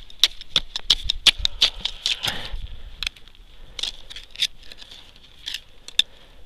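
Ice chisel jabbing into clear new river ice to test its thickness: quick, sharp chipping strikes, thinning out to a few single strikes after about two and a half seconds.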